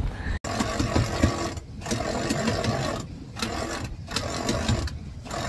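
Electric sailboat winch running, hoisting a person up the mast, in several stretches broken by short stops.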